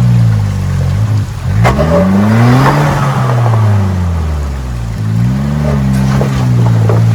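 Suzuki Jimny JA11's small three-cylinder turbo engine revving up and down repeatedly as the 4x4 crawls over rocks, with several sharp knocks and clunks along the way.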